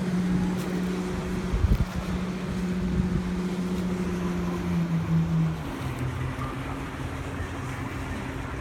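Motorboat engine running steadily out on the river as a low hum, its pitch dropping to a lower note about two-thirds of the way through.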